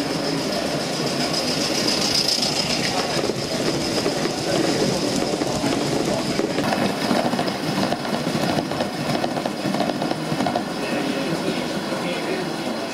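Gauge 1 model train rolling past on the layout track, its wheels running steadily along the rails, a little louder in the middle of the pass.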